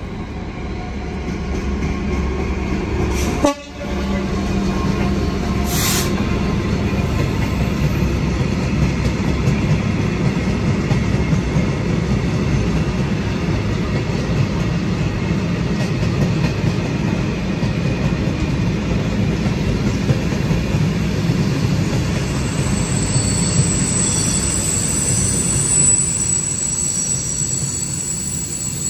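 Freight train of open box wagons passing close by behind a diesel locomotive: a steady rumble of wheels on rail that builds over the first couple of seconds. Near the end a thin high-pitched squeal joins, typical of wagon wheels squealing on the rails.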